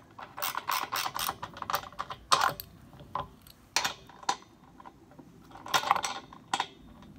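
Socket wrench turning the nut that holds a compressor wheel on its axle bolt, with bursts of quick metal clicking and rattling, several times over.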